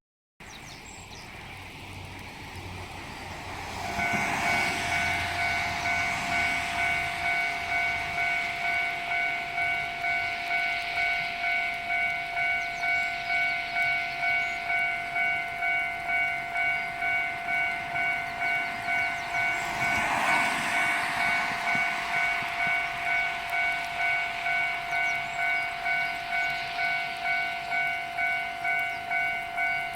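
Japanese railway level-crossing warning bell starting about four seconds in and ringing steadily in a repeated kan-kan, about two strikes a second.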